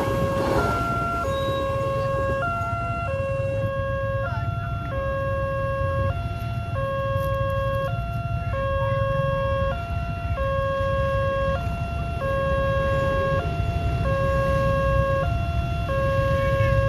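Railway level-crossing warning siren sounding a repeating two-tone alarm: a long lower tone of about a second followed by a short higher tone, the pair repeating about every two seconds, over a steady low rumble.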